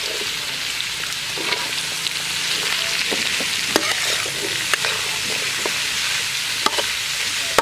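Diced bell pepper, onion and pineapple sizzling in a hot steel wok, stir-fried with a metal spatula that clinks and scrapes against the wok now and then.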